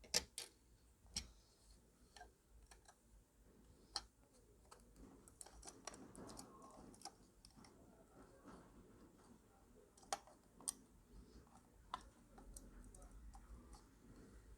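Scattered small clicks and taps, a few seconds apart, from handling a smartphone's parts and tools during reassembly, over faint handling noise; the sharpest click comes right at the start.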